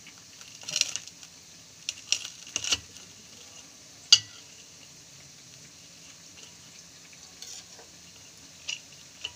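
A knife cutting through a crisp fried bread roll on a stainless steel plate: a few short crunches in the first three seconds, then one sharp clink of the blade on the plate about four seconds in, the loudest sound, with a few faint scrapes and taps near the end.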